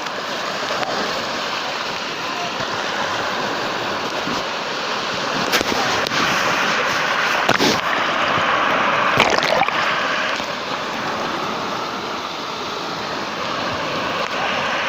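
Sea surf washing ashore: a continuous rush of waves that swells louder through the middle, with a few brief splashes.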